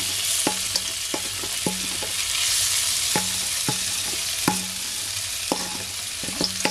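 Sliced onion, scallion, garlic and scotch bonnet pepper sizzling steadily as they drop into hot oil in a nonstick wok. The hiss swells a couple of seconds in, and about a dozen light clicks and knocks come at irregular moments.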